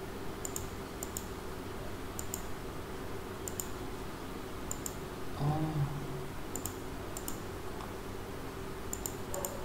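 Computer mouse clicking, in quick double clicks of press and release every second or so, over a steady low hum. A brief murmured voice about halfway through.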